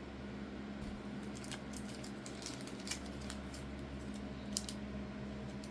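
Faint scattered clicks and light plastic rustles as a trading card is slid into a soft plastic sleeve, over a steady low hum.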